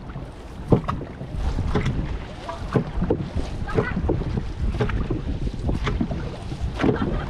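Dragon boat crew paddling together, the strokes landing in a steady rhythm about once a second, with wind buffeting the microphone.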